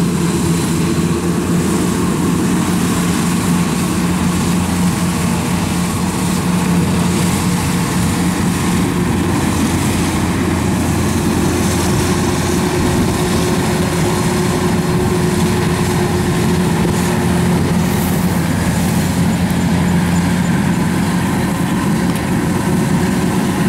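Kubota rice combine harvester's diesel engine running steadily as the machine drives through and cuts standing rice: a constant even hum that holds one pitch throughout.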